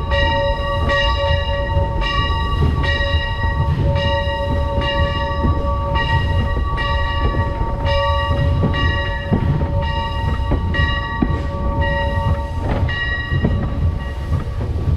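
Steam locomotive's bell ringing steadily, struck about once a second, over the low rumble of the locomotive running along the track.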